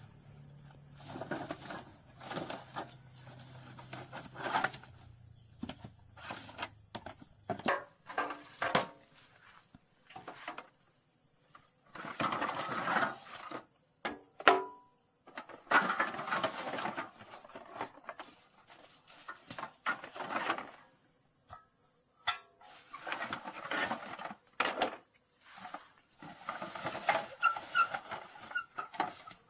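Irregular clicks, knocks and short scraping bursts from hand work on metal parts, with brief pauses between them.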